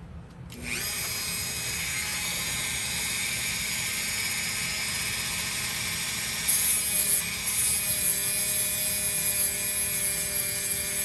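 Dremel rotary tool starting up under a second in and running with a steady high whine, its bit grinding a wooden dowel plug down in a guitar body's bridge post hole. It gets louder and rougher for about a second near the middle as the bit bites harder into the wood.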